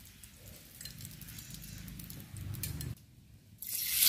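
Metal utensil lightly clinking and scraping on a non-stick frying pan as cooking oil is spread. Near the end, battered small shrimp ladled into the hot oil start sizzling, suddenly and loudly.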